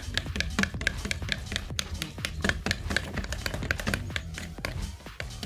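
Toothbrush stirring shampoo and water in a plastic mug, its head and handle scraping and tapping the sides in quick, irregular clicks as the soapy water is whisked into foam.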